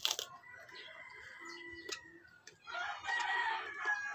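A rooster crows in the background, one long call in the last second and a half. At the very start there is a sharp crunch of a bite into raw cucumber.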